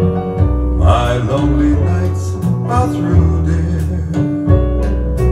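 A song with guitar, bass and singing, played back through a GM100 single-ended monoblock tube amplifier and its loudspeakers.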